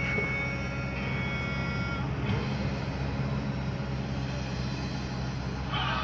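Steady low hum of a car driving, engine and road noise heard from inside the cabin. For about the first two seconds, thin steady high tones sound over it.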